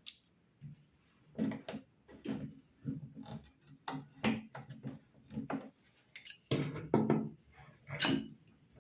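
Irregular knocks and clatters of hard objects being handled and set down, the sharpest clatter about eight seconds in.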